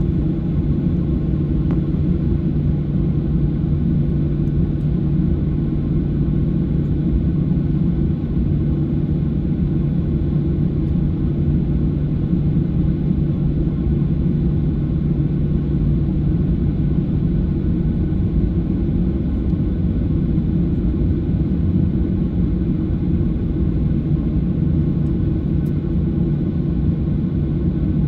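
Cabin noise inside a Boeing 737-700 taxiing on the runway: a steady, loud low rumble from its CFM56-7 jet engines at low thrust and from the airframe rolling, with no build-up of power.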